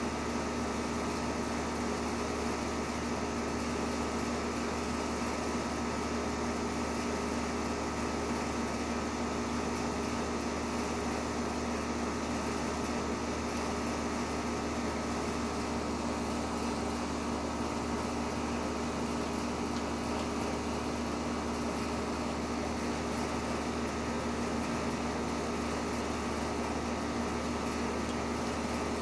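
A steady machine hum with several held tones over an even hiss, not changing at all.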